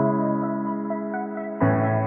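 Background music of slow, sustained chords, with a new chord coming in about one and a half seconds in.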